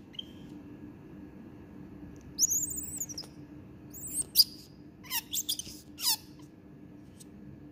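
Baby banded leaf monkey giving shrill, high-pitched squeaky calls: a falling squeal about two and a half seconds in, then a few short chirps, ending in a quick run of four short calls between five and six seconds in.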